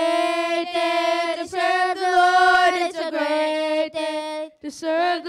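Children's voices singing a hymn together, holding long notes in phrases about a second and a half long, with short breaks for breath between them.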